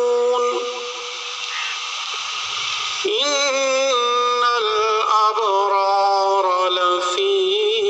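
A male reciter chanting the Quran (tilawat) in a slow, melodic style, amplified through a microphone, with long held notes that glide between pitches. He pauses for breath about a second in and resumes about three seconds in.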